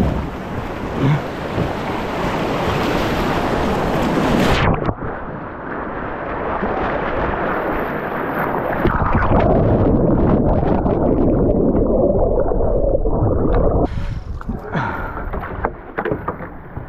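Rushing, churning river water with wind buffeting the microphone. The sound changes abruptly several times, turning duller after about five seconds. Near the end come splashes and knocks as water is emptied out of a canoe after a capsize.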